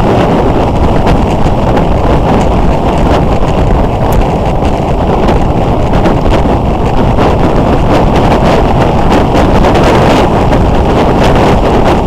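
Loud, steady wind buffeting on the microphone of a camera mounted on a moving motorcycle, with the motorcycle's riding noise mixed into the roar.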